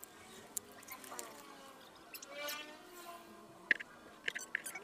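Faint handling sounds of a small circuit board and a carpeted tube subwoofer enclosure being moved about: a few light clicks and taps, clustered near the end.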